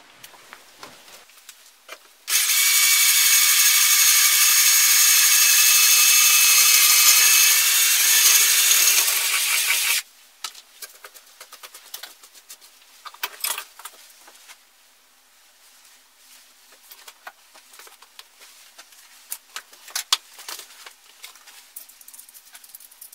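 Power drill boring a hole through the metal of a homemade tree-climbing spike, running steadily with a high whine for about eight seconds, then stopping. Light clicks and scrapes of the metal being handled follow.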